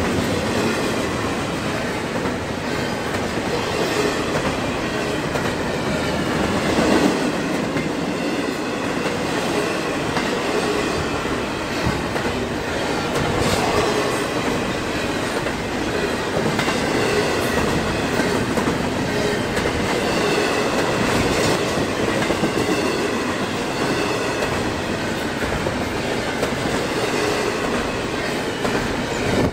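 Double-stack intermodal container cars of a CSX freight train rolling past close by: a steady rumble of steel wheels on rail with clickety-clack over the joints, occasional clanks, and thin, wavering wheel squeals now and then.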